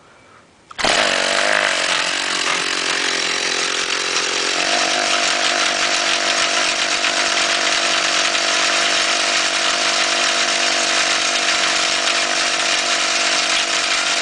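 Two-stroke chainsaw engine on a motorized bicycle starting up about a second in, then running fast and steady, its note shifting slightly about four and a half seconds in. It spins the chain drive and rear wheel far too fast because the gear ratio is wrong: a 15-tooth front sprocket with too small a rear sprocket.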